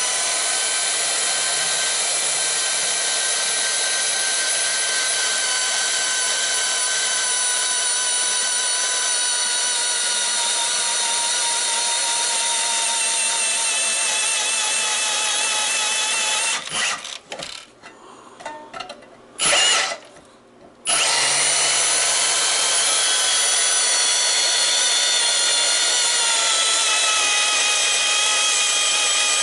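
Bandsaw blade cutting through the steel welds of a transformer: a loud, high-pitched ringing squeal whose pitch slowly sags. A little past halfway it stops for a few seconds, with a short knock in the gap, then the cutting starts again.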